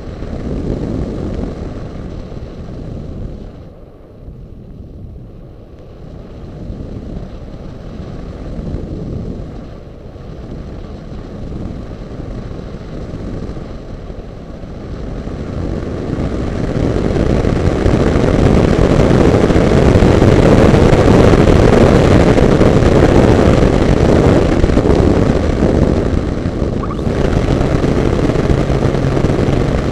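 Wind rushing over a camera mounted on a radio-controlled motor glider: gusty at first, then building to a loud steady rush about halfway through. Near the end the motor starts, and a steady low hum from the spinning folding propeller comes in.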